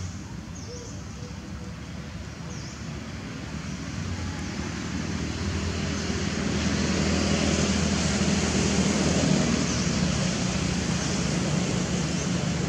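Engine rumble and rush from a passing motor, growing louder from about four seconds in and staying loud through the second half, with a few faint high chirps over it.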